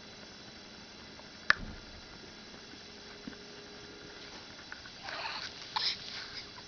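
A newborn baby hiccuping: one sharp, sudden hic about a second and a half in, followed near the end by short snuffly breaths.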